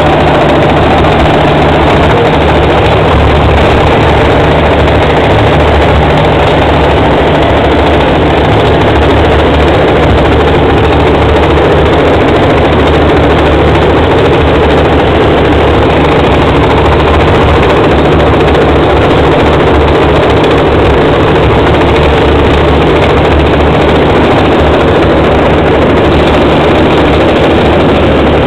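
Bulldozer's diesel engine running steadily and loudly, a constant low drone with no change in pitch.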